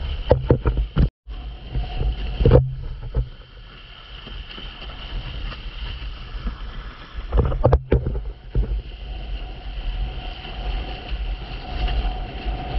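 Windsurf board planing through choppy sea, with wind buffeting the microphone and water hissing and splashing against the board. Several sharp slaps come as it hits chop, mostly in the first three seconds and again near eight seconds in, and the sound cuts out briefly twice.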